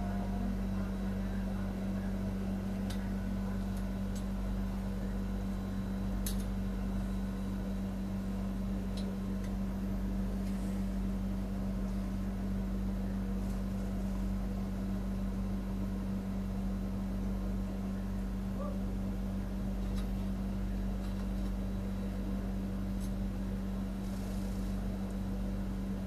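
A steady low mechanical hum with one strong droning tone, and a few faint scattered clicks.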